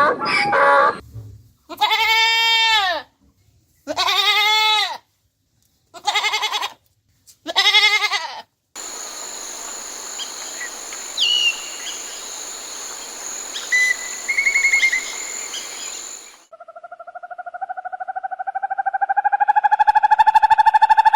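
Goats bleating, four separate calls about a second long each, rising and falling in pitch. Then a steady high-pitched outdoor hum with a couple of brief bird chirps. Near the end comes a long animal call, pulsed and slowly rising in pitch.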